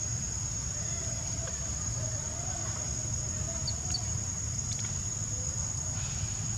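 A steady high-pitched insect drone over a constant low rumble, with two brief high chirps a little past halfway.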